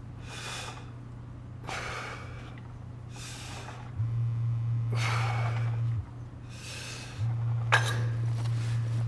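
A man breathing hard in a steady rhythm while working out, about one exhale every second and a half. From about four seconds in, a mobile phone vibrates twice in low buzzes of about two seconds each, with a short clink between them.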